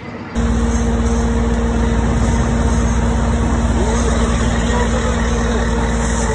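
Heavy diesel engine of a construction machine running steadily close by, a deep rumble with a steady hum on top. It cuts in abruptly right at the start.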